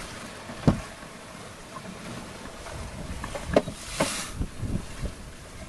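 Sailboat under way at sea: steady wind and water noise, broken by sharp knocks, the loudest about a second in and another about three and a half seconds in. A brief rushing hiss follows the second knock, then a few softer thumps.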